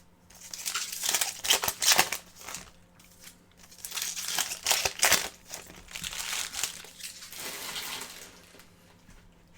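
Foil trading-card pack wrappers crinkling and tearing in irregular bursts as packs are ripped open, dying away near the end.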